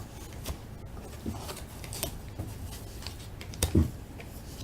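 Quiet handling of a pack of baseball cards: scattered small clicks and rustles of cards and wrapper, with one louder thump about three-quarters of the way through.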